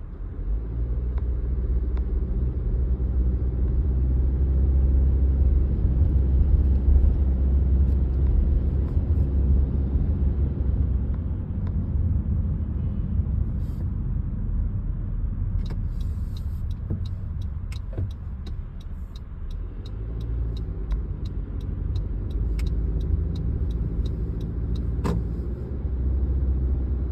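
Car driving, heard from inside the cabin: a steady low rumble of road and engine noise. About halfway through comes a run of sharp, evenly spaced clicks, roughly two a second, lasting around ten seconds.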